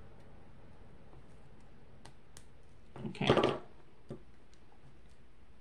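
Small metal keychain hardware being handled: a few light clicks, with one brief louder rattle about three seconds in as a split ring is worked onto a charm.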